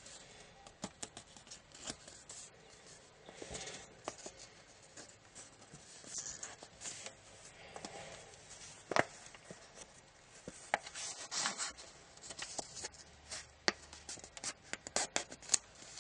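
Origami paper rustling and crackling as it is folded and creased by hand, with many irregular sharp crinkles and a louder crackle about nine seconds in.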